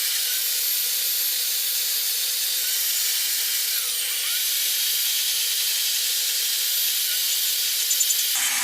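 Carving chainsaw running at high revs while cutting detail into wood: a steady, hissy noise, with the engine speed dipping briefly about four seconds in.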